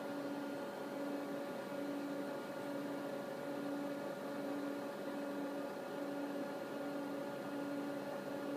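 Steady electrical hum and fan noise from running electronic test equipment, with a lower tone that pulses on and off a little more than once a second.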